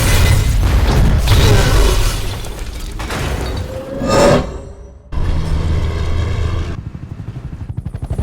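Action-film sound mix of heavy truck rumble and booming crash impacts over a film score. A sharp sweep about four seconds in gives way to a sudden drop just before five seconds, then the low rumble returns and turns into a choppy pulsing near the end.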